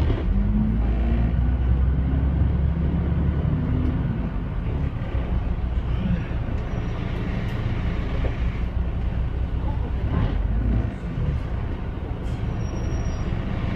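Double-decker bus engine running as the bus drives, heard from inside on the upper deck, a steady low hum with a shifting engine note. About ten seconds in the engine note drops and the sound eases as the bus slows.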